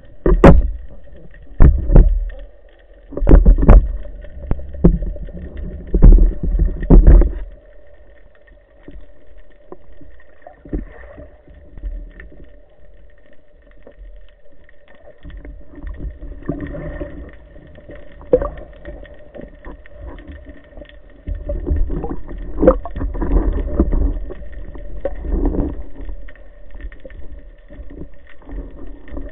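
Water sloshing and splashing against a waterproof camera housing on a speargun, muffled and low, as a spearfisher moves at the surface. There are heavy thumps in the first seven seconds and again from about 21 to 26 seconds in, with a faint steady hum underneath.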